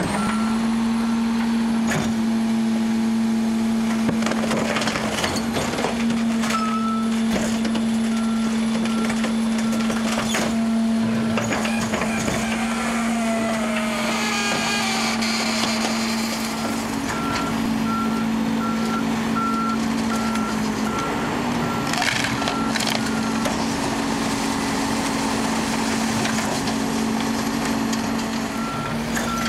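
Rear-loading garbage truck running its compactor: a steady hum from the engine and hydraulics, with knocks, cracks and crunching as the packer blade crushes furniture in the hopper. A warning beeper sounds in a steady series of short beeps, once near the start and again from about two-thirds of the way through.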